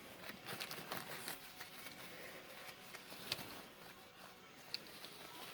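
Faint rustling and a few light, sharp clicks as packaging and small toy cars are handled.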